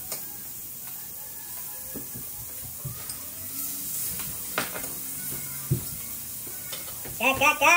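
Food sizzling on a moo kata tabletop grill, a steady hiss with a few sharp clicks of utensils against the pan. A voice starts near the end.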